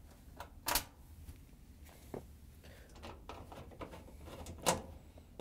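Light clicks and scrapes of a Phillips screwdriver turning screws out of a clothes dryer's plastic lint screen housing, with two sharper clicks, just under a second in and near the end.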